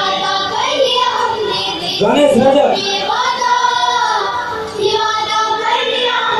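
A song with a high singing voice over musical accompaniment.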